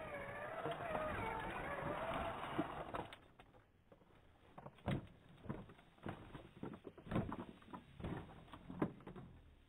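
Electric motor and gears of a 1:10 scale RC crawler whining and wavering in pitch as it strains up over a tree root for about three seconds. Then a series of scattered plastic knocks and clatters as the truck tips over onto its side.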